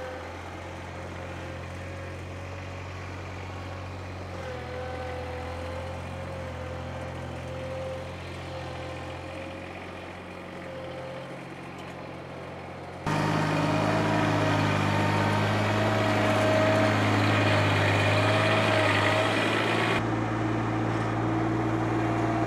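Ventrac compact tractor running steadily while it drives a power rake through loose soil, with a steady high whine over the engine. About 13 seconds in, it suddenly becomes louder and closer.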